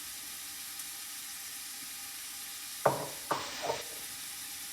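Onions and herbs sizzling in hot olive oil in a pot, a steady frying hiss. About three seconds in, three sharp ringing knocks of a utensil against the pot as it is stirred.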